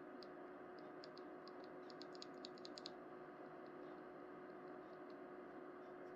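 Faint, quick clicks from a Kreo Swarm mechanical keyboard's keys, scattered and then bunched in a rapid run about two to three seconds in, over a faint steady hum.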